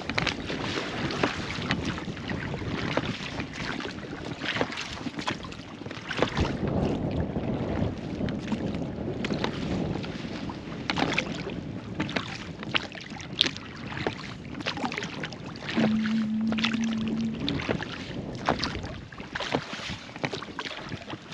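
Dinghy being rowed against the wind: irregular knocks and splashes from the oars, with wind buffeting the microphone.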